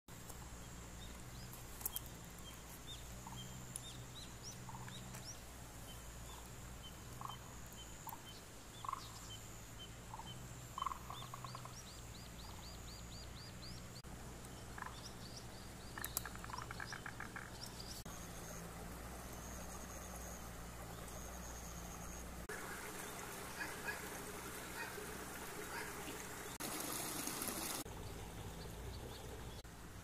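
Outdoor village ambience: small birds chirp and give a quick trill over a steady high insect drone, and water runs with a rushing noise during the last third.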